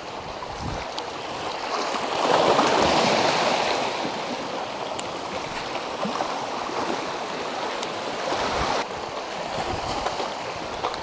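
Small sea waves washing and lapping over shoreline boulders, the wash swelling louder about two seconds in and then easing.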